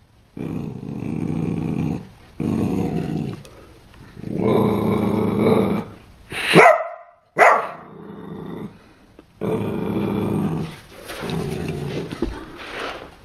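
Corgi puppy growling in repeated long stretches, with two sharp high yips about midway.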